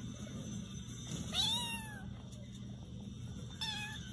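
A small tabby kitten meowing twice: a longer high-pitched meow that rises and falls about a second and a half in, then a short one near the end, over a steady low hum.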